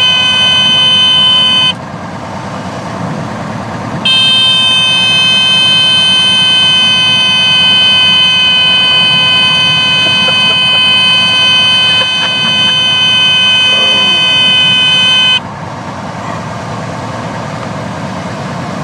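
Cessna 170A stall warning horn sounding a steady buzzing tone, a sign that the wing is near the stall. It cuts out about two seconds in, comes back after another two seconds and holds for about eleven seconds before stopping, over the steady drone of the engine and propeller in the cabin.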